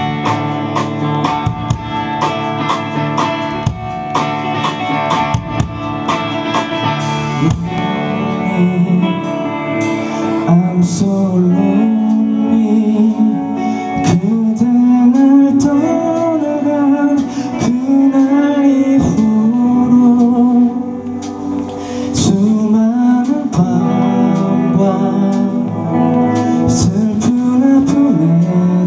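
Live rock band playing a song's intro on electric guitars and drums. A lead melody comes in over the chords about ten seconds in.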